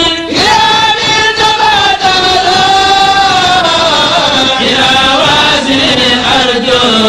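A kourel, a group of male Sufi chanters, singing an Arabic devotional poem in unison chant, with long held notes that glide from one pitch to the next.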